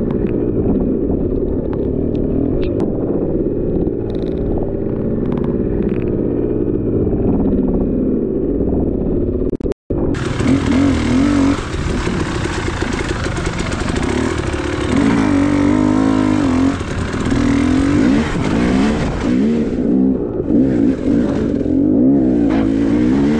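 Dual-sport motorcycle engine running under changing throttle, its pitch rising and falling. The sound drops out for an instant about ten seconds in. After that a steady hiss rides over the engine for about nine seconds.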